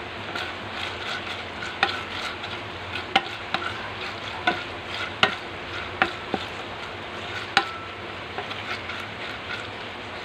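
Beef tapa sizzling in a metal frying pan, with a spatula stirring it: a steady sizzle broken by a dozen or so sharp, irregular knocks and scrapes of the spatula against the pan.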